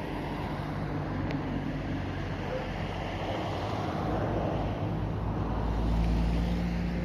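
Steady low engine-like hum and wind noise on the microphone, the low rumble swelling about four seconds in; no firework bangs.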